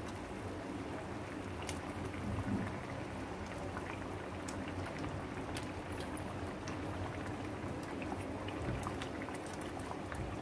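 Thick curry gravy boiling in a kadai: scattered small pops of bursting bubbles over a steady low hiss.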